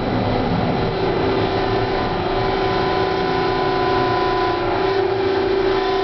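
Hawker-Siddeley H5 subway car coming into a station: steady running rumble, with an electrical whine of several steady tones setting in about a second in.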